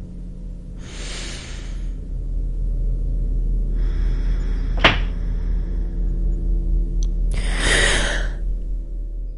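Eerie horror-score sound design: a steady low rumbling drone with three swelling whooshes, about a second each, and a sharp hit a little before the five-second mark.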